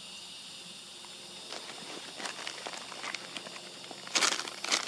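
Faint steady outdoor hiss with a few scattered clicks, then a burst of close crackling and rustling, like handling or crinkling near the microphone, about four seconds in.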